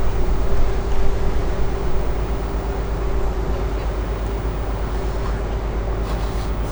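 Ship's engine running steadily: a low rumble with a constant hum above it.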